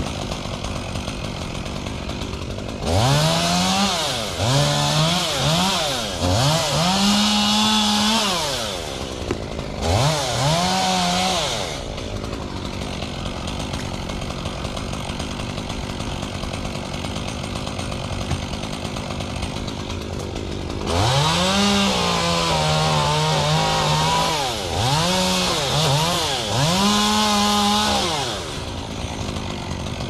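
Chainsaw revving in repeated bursts while cutting palm fronds and idling in between. Each burst climbs in pitch, holds, then drops back. One run of cuts comes a few seconds in, the saw then idles for about nine seconds, and another run of cuts follows near the end.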